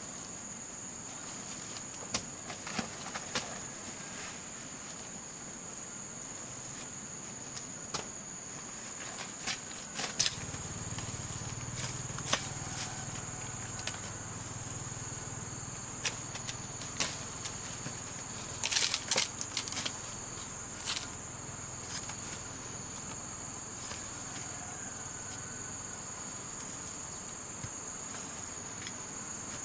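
Steady high-pitched insect drone, with scattered snaps and rustles of leafy plants being pulled and picked by hand; a short cluster of sharp snaps about two-thirds of the way in is the loudest.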